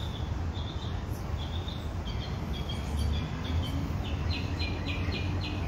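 A songbird singing a run of short, high chirps, the notes coming faster, about four a second, in the last second or two. Under it runs a low, steady rumble.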